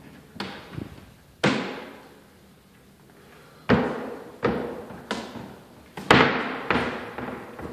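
Wooden cabinet doors being opened and banged shut: about eight knocks and bangs, each ringing briefly. The loudest come about a second and a half in, near four seconds and just past six seconds.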